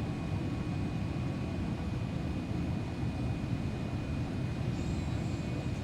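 Steady cabin noise inside a Boeing 787-8 airliner on its approach to land: an even rumble of engines and airflow, with a faint steady high whine running through it.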